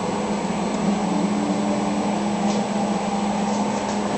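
Steady machine hum with one even low drone, holding level throughout.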